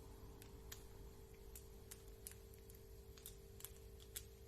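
Faint, irregular light clicks of small RC car parts and tools being handled during differential reassembly, about a dozen over a few seconds, over a steady low hum.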